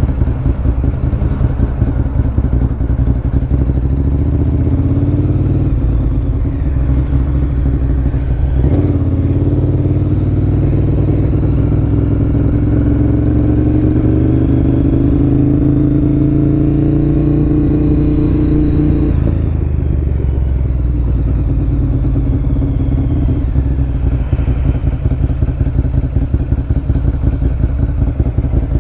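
Ducati Monster 1100 EVO's air-cooled L-twin engine through a Termignoni exhaust, under way. It revs up in the first few seconds and then makes a long pull that rises steadily in pitch. Around nineteen seconds in the throttle closes and the engine drops back to lower, uneven running.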